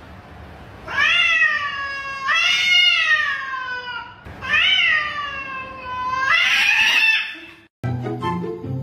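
Domestic cat yowling: four long, drawn-out meows in a row, each rising then falling in pitch, the last one harsher. Near the end the yowling stops abruptly and music begins.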